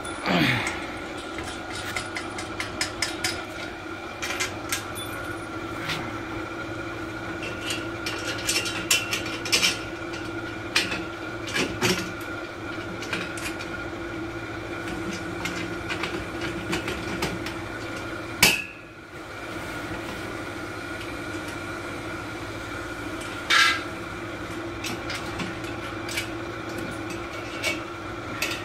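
Scattered metallic clinks, taps and knocks from tubular metal bed-frame parts being handled and fitted together, over a steady background hum. The loudest knocks fall about two-thirds of the way through and again a few seconds later.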